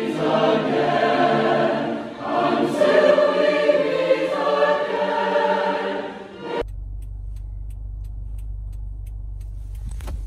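A large choir singing, many voices together. About two-thirds of the way in it cuts off abruptly to the steady low rumble of a car cabin on the move.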